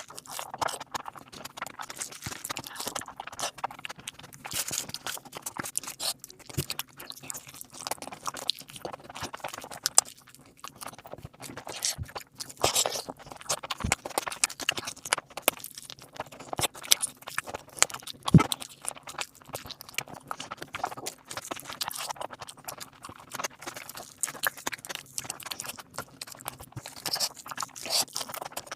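Close-miked eating sounds of biryani with egg and gravy: irregular wet chewing and lip smacking, with the occasional sharp click or knock of a utensil or plate.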